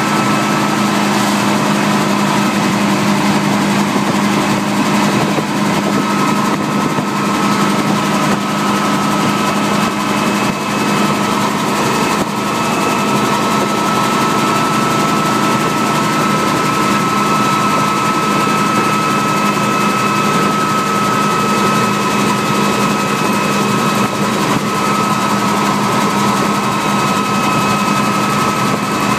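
Helicopter in flight heard from inside the cabin: engine and rotor running steadily, with a constant high whine over a low hum.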